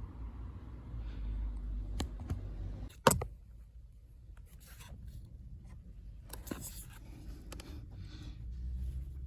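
Hand work on car interior parts: rubbing and scraping, with several sharp clicks, the loudest about three seconds in, over a low steady rumble.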